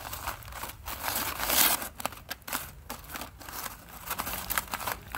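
Aluminium foil being crumpled and crimped shut by hand around a foil packet: irregular crinkling, loudest about a second and a half in.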